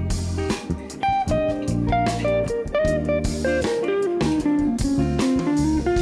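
Background music: a plucked guitar melody moving in short stepping notes over low bass notes and a steady drum beat.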